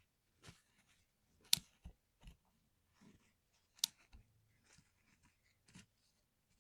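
Keys of a lubed keyboard being pressed in an irregular run of soft clicks, with two sharper, louder clacks about a second and a half in and near four seconds in.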